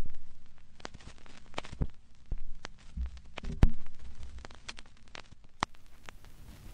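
Vinyl record surface noise as the turntable stylus rides the lead-in groove: irregular crackles and pops over a low hum and faint hiss. A loud pop at the very start as the stylus is set down on the record, and another sharp pop about three and a half seconds in.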